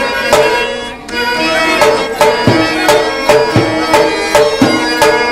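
Live drama-band music: a clarinet playing a held melody over a steady drum beat of about two to three strikes a second.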